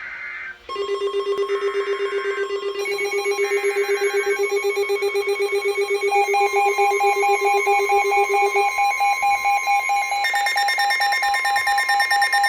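Several weather radios sounding their alert alarms: rapidly pulsing electronic tones at different pitches, more of them joining one after another, over the short warbling data bursts of the EAS digital header in the first few seconds.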